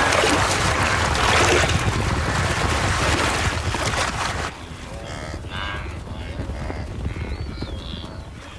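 A herd of wildebeest bolting out of a river: a loud rush of splashing water and trampling for the first four seconds or so. It then falls quieter, with a few short wildebeest calls.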